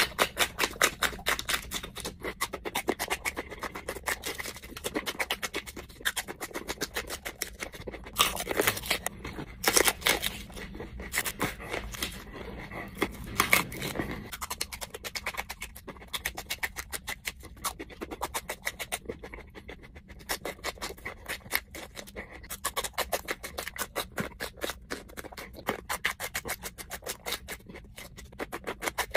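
Close-miked crunching and chewing of raw chili peppers, bite after bite of crisp pepper flesh. The busiest, loudest crunching comes in the middle.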